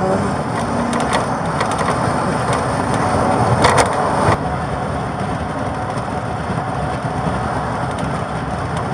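Steady road and running noise inside a moving police patrol car, with scattered light knocks and a louder burst of rattling about four seconds in.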